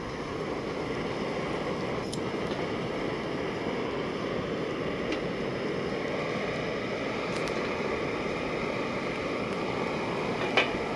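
Canister camp stove burning steadily under a pot of water as it comes to a rolling boil: a steady rushing noise that grows a little louder over the first couple of seconds, with a few faint sharp clicks.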